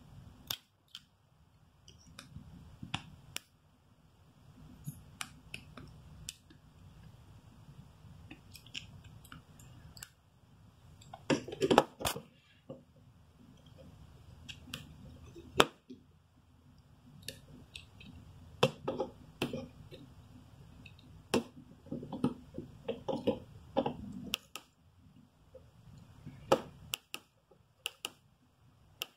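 Scattered small clicks, taps and knocks from fingers handling the parts of a disassembled Nokia 6600 slide phone, pressing on its display connector and circuit board, with a few short clusters of louder knocks, the loudest about twelve seconds in.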